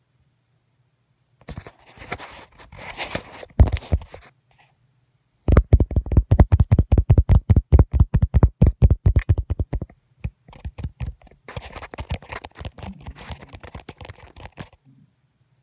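A dog scratching itself, its hind foot thumping the floor in a fast, even run of about nine strokes a second for some four seconds, with lighter scratching and rustling before and after.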